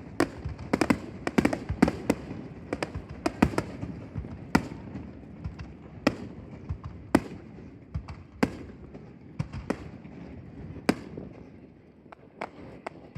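Fireworks bursting overhead. A rapid run of sharp cracks comes first, then single bangs about every second or so, thinning out near the end.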